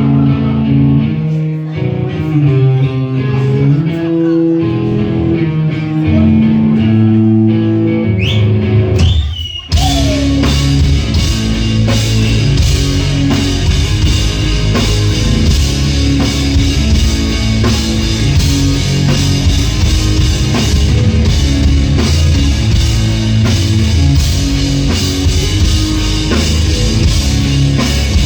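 Live rock band playing an instrumental intro: guitar and bass notes alone at first, then a short slide and, about ten seconds in, drums and the full band come in loud.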